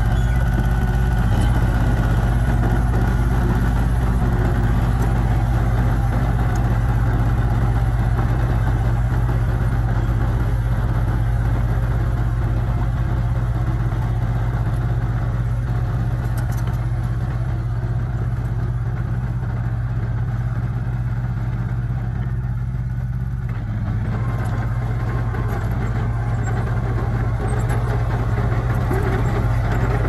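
Small Komatsu crawler bulldozer's diesel engine running steadily while it pushes soil and rock, its note shifting slightly about three-quarters of the way through.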